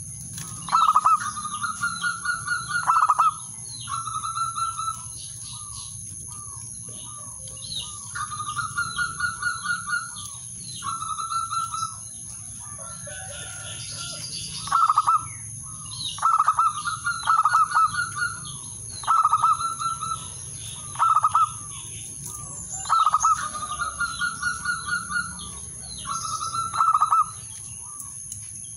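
Male zebra dove (perkutut) cooing: repeated phrases of rapid staccato coos, each a second or two long, separated by short pauses.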